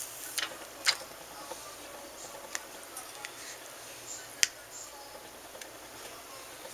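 Plastic phone case being handled and pressed onto a smartphone: a few sharp small clicks and taps, the loudest about a second in and at about four and a half seconds, over faint handling rustle.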